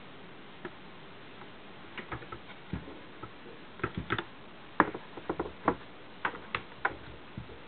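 Irregular plastic clicks and knocks of a Getac rugged convertible laptop's screen being swivelled round on its centre hinge and folded down flat over the keyboard. The clicks come thicker after about two seconds, with the loudest knock about five seconds in.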